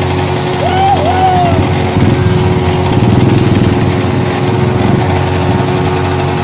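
Yamaha R15 V3's single-cylinder engine running while the motorcycle is ridden, its note growing a little stronger about two seconds in. A short wavering higher tone sounds about a second in.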